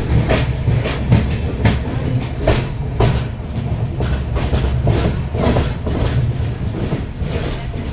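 Indian Railways passenger train's coach wheels clattering over the rail joints with a steady rumble as the train gets under way, heard from the side of a coach.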